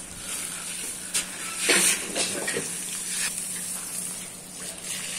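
Water spraying from a hose onto a bull, a steady hiss with a few short louder splashes, the loudest about two seconds in.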